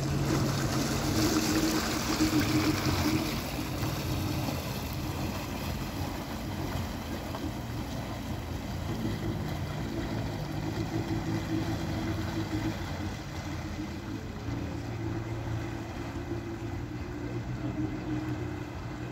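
Jet ski engine running steadily under way, with a rushing hiss of water and air, louder in the first three seconds.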